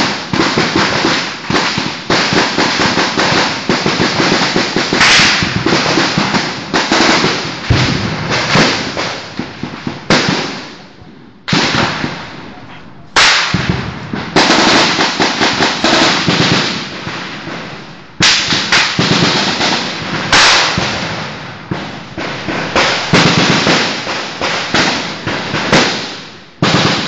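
Sustained heavy gunfire in a firefight: rapid automatic rifle fire, shot after shot ringing out with echoes, in long volleys with short lulls about eleven seconds in and again around eighteen seconds.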